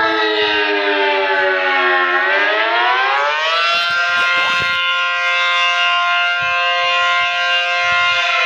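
ACA Allertor 125 outdoor warning siren sounding a wail: its pitch winds down, climbs again about two seconds in, holds a steady high tone for about five seconds, and starts to fall again near the end.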